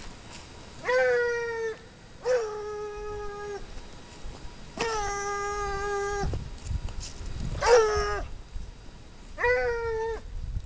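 Ariégeois scent hounds baying on a hare's trail: five long, drawn-out bays a second or two apart, with slightly different pitches suggesting more than one hound.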